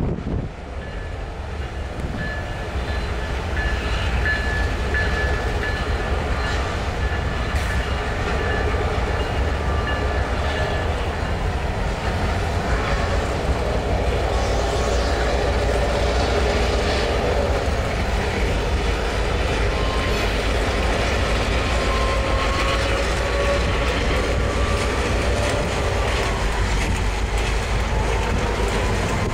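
Freight train of tank cars and boxcars rolling past, its wheels clacking over the rail joints in a steady rumble. Thin high whines come and go over it.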